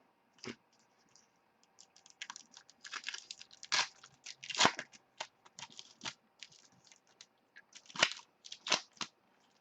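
Trading cards and their pack wrappers being handled: an irregular run of crinkles, clicks and short tearing sounds. The loudest come about four and a half and eight seconds in.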